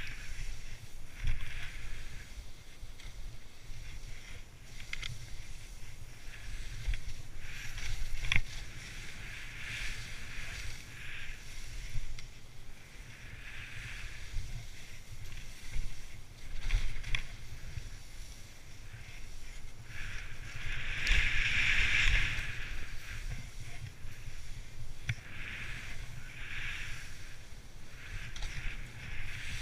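Skis turning through soft off-piste snow: a swishing hiss with each turn every second or two, the longest about three-quarters of the way through. A steady low rumble runs underneath, with a few sharp knocks.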